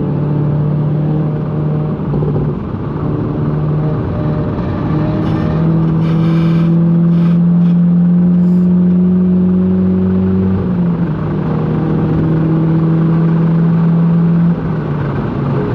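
Volkswagen Golf GTI engine heard from inside the cabin, running at steady moderate revs with its pitch stepping up and down a few times, over constant tyre and road noise.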